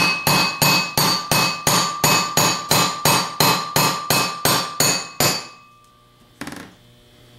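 Hammer tapping on a half-inch socket extension to drive the rear bushing into the heated aluminum back plate of a 42MT truck starter: steady metallic taps about three a second, each with a ringing tone. The taps stop about five and a half seconds in as the bushing seats, followed by one lighter knock.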